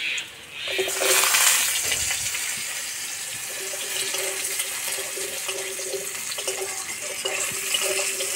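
Cubed potatoes going into hot mustard oil in a metal karai, with a loud sizzle starting about a second in. The potatoes then fry steadily while a metal spatula stirs and scrapes the pan.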